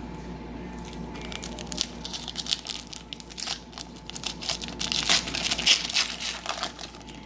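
Foil trading-card pack wrapper being torn open and crinkled by hand, a dense run of crackles that is loudest near the end.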